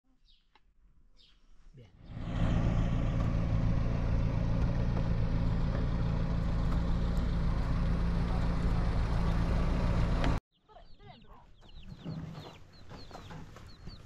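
A vehicle engine running steadily for about eight seconds, starting a couple of seconds in and cutting off abruptly. After it, chickens clucking amid small bird chirps.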